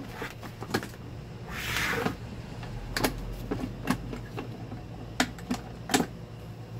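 Scattered clicks and knocks of a Cadence electric fan's plastic parts being worked by hand as its oscillation pin is taken out, with a short scraping rustle about a second and a half in.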